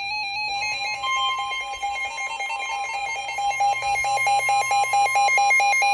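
Emergency alert tones: a fast two-pitch electronic warble, alternating about four times a second, with a steady single tone joining about a second in, announcing a severe thunderstorm warning.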